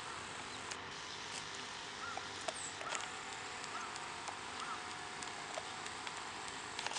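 Dog gnawing a dental bone: scattered faint clicks of teeth on the chew over a steady outdoor hiss. A run of about six soft, evenly spaced chirps comes in the middle.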